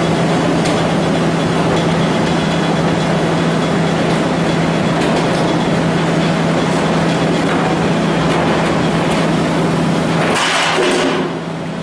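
Knot-removing log debarking machine running: a steady motor hum under dense mechanical noise. About ten seconds in, a short louder rush, then the hum stops and the sound drops.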